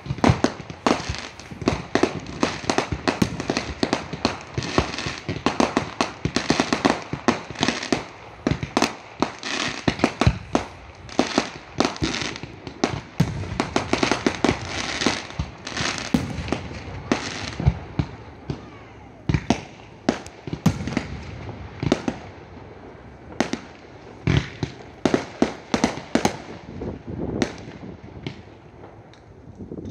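Fireworks going off: a dense barrage of bangs and crackling explosions that thins out after about two-thirds of the way through to separate, spaced bangs.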